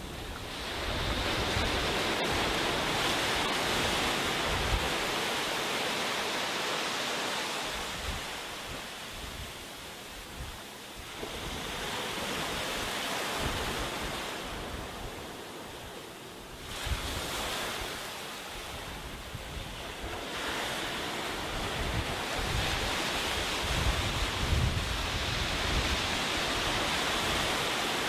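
Small waves breaking and washing up a sandy beach, the surf swelling and ebbing every few seconds. Wind buffets the microphone with low rumbles.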